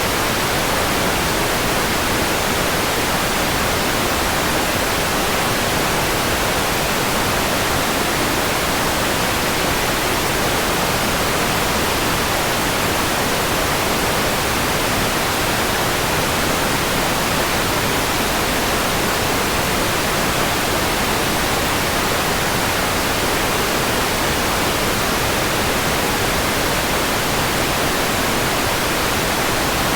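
Steady white noise: an even, unchanging hiss spread across the whole pitch range.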